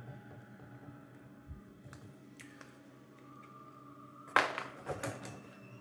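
Small plastic doll accessories handled in the box: a sharp clack about four seconds in, followed by a few quicker clicks, over a faint steady low hum.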